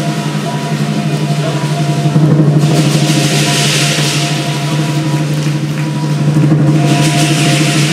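Lion dance drum playing rapid beats, with cymbals clashing in two stretches: from about two and a half seconds in, and again near the end.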